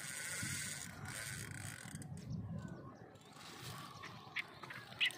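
Spinning fishing reel being cranked to wind in line on a hooked fish, a faint mechanical whirring and clicking that fades after about two seconds.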